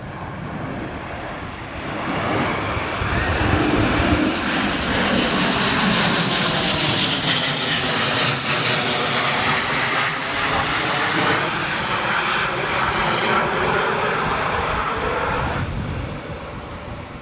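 Formation of BAE Hawk T1 jets of the Red Arrows flying over: jet engine noise swells about two seconds in, holds loud and steady with a slowly shifting whoosh, then fades away near the end.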